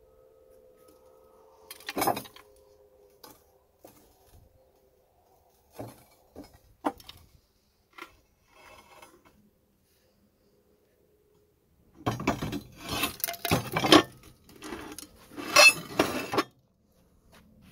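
Metal clinking and knocking from handling a steel model tank: a few separate knocks, then a busy run of clanking and clattering in the last few seconds. A faint steady hum stops about two seconds in.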